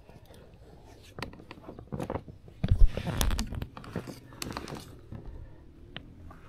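Handling noises of fishing gear in an inflatable kayak: scattered clicks and knocks as the rod and paddle are moved, with a louder stretch of knocking and scraping about three seconds in.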